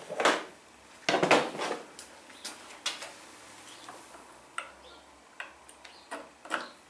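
Scattered light metal clinks and clicks of hand tools and the clutch lever's pivot hardware being handled on a motorcycle handlebar, with a louder cluster about a second in.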